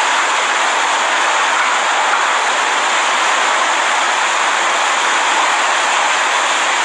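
Category 5 hurricane wind and driving rain: a loud, steady rush of noise that does not let up.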